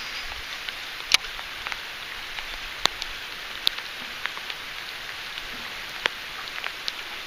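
Rain falling steadily, an even hiss with scattered sharp ticks of single drops striking close by.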